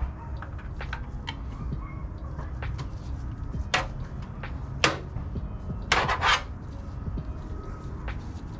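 Metal hand tools clinking and scraping under the hood, irregular small clicks with a few sharper clacks about four, five and six seconds in, over a steady low hum.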